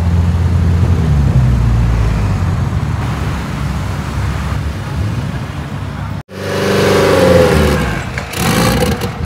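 Vehicle running: a steady low drone, then, after a sudden cut about six seconds in, a pitched tone that falls slightly, followed by a rushing noise near the end.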